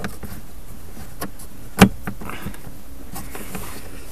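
A few light clicks and one sharp knock about two seconds in, from a screwdriver and the plastic glovebox panel being fitted and screwed in, over a steady hum.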